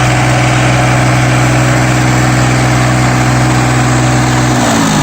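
Daedong tractor's diesel engine running at steady revs, then dropping in pitch near the end as it slows.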